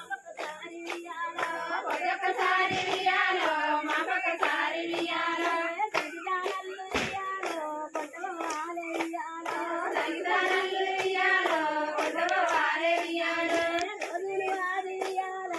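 Many hands clapping in a steady rhythm, with women's high voices singing a Bathukamma folk song in long wavering notes: the clapping that keeps time for the women circling the Bathukamma.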